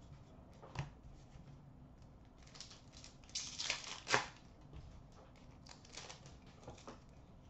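A trading card pack's thin plastic wrapper crinkling and tearing as it is pulled open by hand, loudest about three to four seconds in, with a few light clicks of cards being handled.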